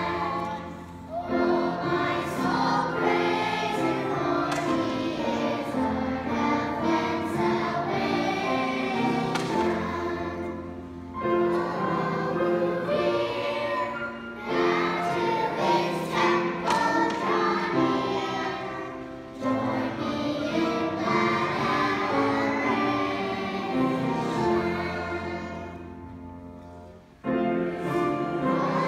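Mixed choir of children and adults singing with accompaniment, phrase after phrase. Near the end the sound fades, breaks off briefly, then a new phrase starts.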